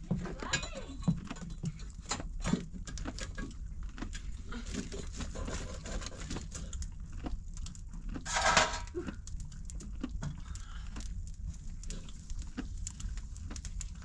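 Small open wood fire crackling with scattered sharp clicks while sticks are handled and laid on it. About eight and a half seconds in there is a short, loud, breathy rush of noise.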